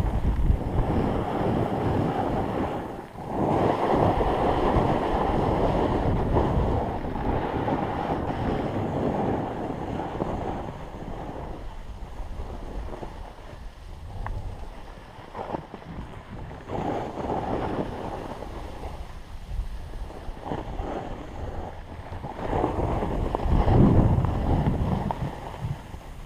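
Wind buffeting a GoPro's microphone during a fast descent on snow, mixed with the hiss and scrape of snow under the rider. It is loudest for the first ten seconds and again about 23 seconds in, with a short lull about 3 seconds in and a quieter stretch in the middle.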